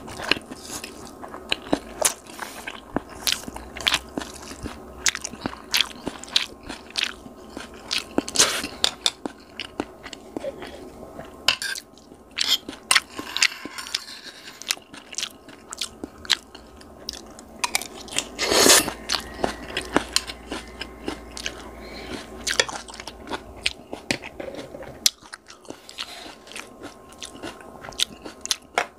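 Close-miked chewing and crunching of noodles mixed with raw shredded cabbage and chopped chili peppers: crisp crunches come several times a second, with one louder burst about two-thirds of the way through.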